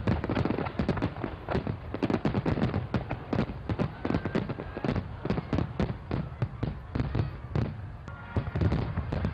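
Aerial fireworks display: a rapid, continuous string of bangs and crackles as shells burst, several reports a second. A thin whistle comes in briefly about four seconds in and again near the end.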